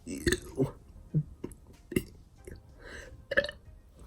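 A boy burping the letter "U" at the start, then several short sharp throat sounds and a louder short burst at about three and a half seconds.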